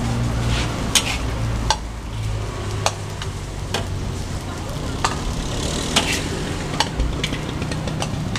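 Metal spatula scraping and clanking against a steel wok as fried rice is stir-fried. Sharp clanks come roughly once a second over a steady low rumble.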